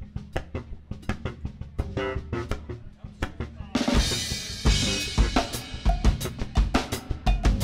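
Funk band playing live, led by a drum kit with steady snare and kick drum hits; about four seconds in the whole band comes in and the music gets much louder and fuller.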